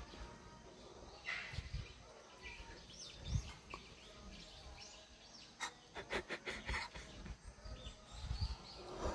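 Small birds chirping here and there, with a quick run of sharp clicks about two-thirds of the way in and a few dull low knocks.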